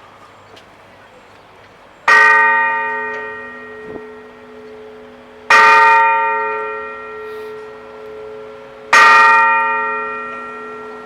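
The ship's bell of the armored cruiser USS West Virginia struck three times, about three and a half seconds apart, each stroke ringing on and slowly fading: a memorial toll.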